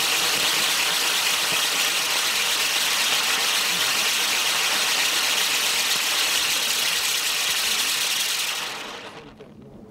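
Catherine wheel firework burning, its jets throwing off a shower of sparks with a steady hiss that dies away about nine seconds in as the firework burns out.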